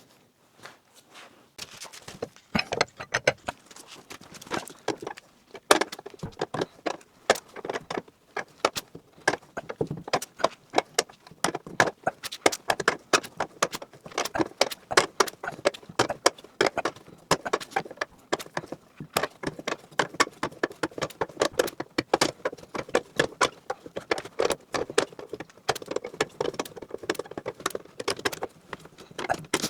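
Irregular clinking, rattling and small knocks of metal tools and parts being handled, dozens of sharp clicks coming unevenly close together.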